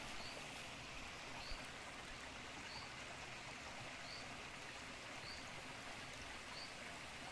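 Shallow creek trickling over rocks, a steady water sound. Over it, a short high chirp repeats at an even pace, about once every second and a quarter.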